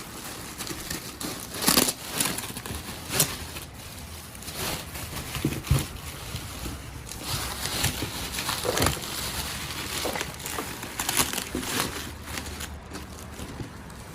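Cardboard box and packing material being opened and handled by hand: irregular crinkling and rustling, with a few sharp knocks and cracks.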